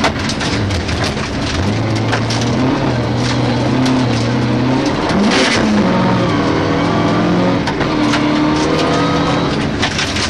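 Rally car engine heard from inside the cabin at speed on a gravel stage, its pitch dropping and climbing again with gear changes and throttle. Gravel ticks and clatters against the car throughout, with a louder rush of gravel about halfway through.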